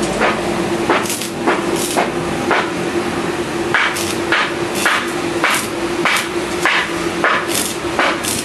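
Metal being hammered in a regular rhythm, about two blows a second, over a steady hum.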